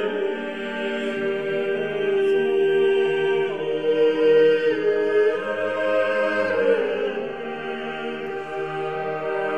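Slow background music with long held notes that change pitch in slow steps.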